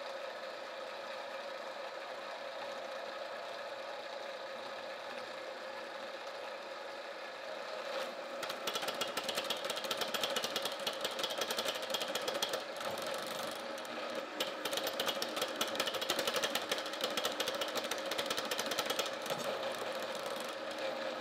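Motor-driven tapping head cutting a 1/2-13 thread in steel, running with a steady hum. About eight seconds in, a fast, dense clicking starts and keeps on: the tap breaking the chip as it cuts.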